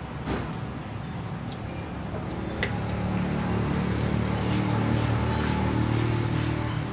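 A low motor hum swells from about three seconds in and holds loud near the end. A few light clicks of a fork against a metal tray and oyster shells come over it.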